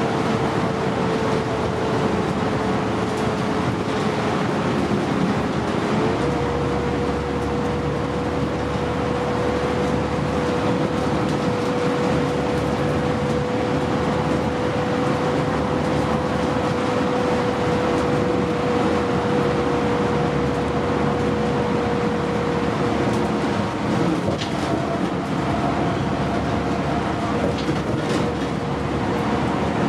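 Cabin noise inside a 2009 New Flyer D60LFR articulated diesel bus under way: steady engine and road noise with a steady whine that steps up slightly in pitch about six seconds in.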